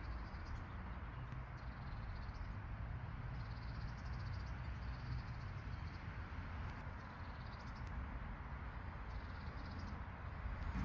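Outdoor ambience: a steady low rumble with birds chirping in short high trills, several times.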